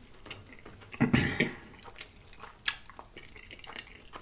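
Close-miked handling and mouth noises: a short muffled sound about a second in, then a sharp click and small rustles and clicks as a large corned beef sandwich on rye is lifted off a wooden board.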